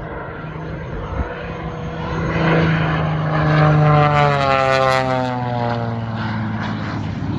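Jet Waco aerobatic biplane flying past. Its engine drone swells to its loudest about four seconds in, then slides steadily down in pitch as the plane passes and moves away.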